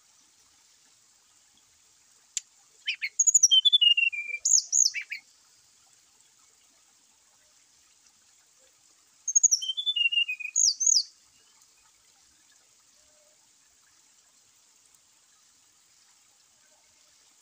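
Brown-chested jungle flycatcher singing two short phrases of clear whistled notes, one about two and a half seconds in and another about nine seconds in. Each phrase opens with high notes and then steps down in pitch.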